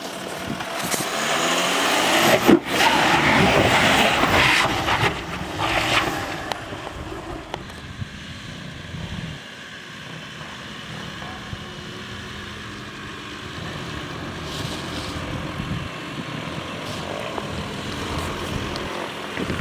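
2011 Volkswagen Touareg TDI driving off-road. The noise is louder and rougher for the first six or seven seconds, with a sharp click about two and a half seconds in, then settles to a quieter, steadier run.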